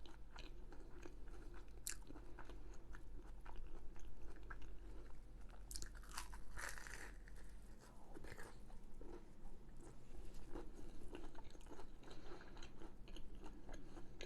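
A person chewing close to the microphone, with crisp crunching bites and wet mouth sounds. The crunches come thickly throughout, loudest about two seconds in and around the middle.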